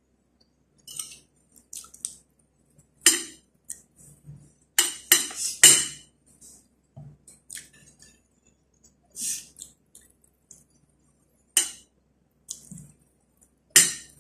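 Metal spoon and fork clinking and scraping on a ceramic plate while scooping rice, in scattered strokes, with three sharp clinks close together about five seconds in.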